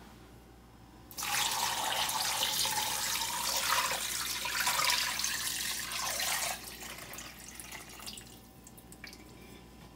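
Water poured from a large glass jar into the stainless steel inner pot of an Instant Pot over ham bones, splashing and rushing as it fills the pot. The pour starts about a second in, thins to a trickle after about six seconds and stops near the end.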